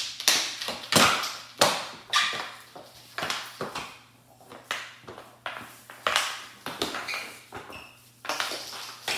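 Hockey sticks clacking against each other and striking the puck and the hardwood floor in a scramble for the puck: a quick, irregular run of sharp knocks, sometimes two or three a second.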